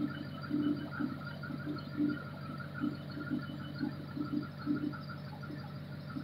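An engine running at idle: a steady low hum, with irregular short low pulses over it.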